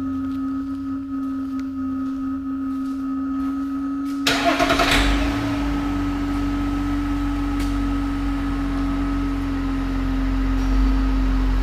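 A steady electronic tone sounds throughout. About four seconds in, the truck's 3.0-litre Duramax inline-six turbodiesel cranks and fires, then settles into a steady low idle.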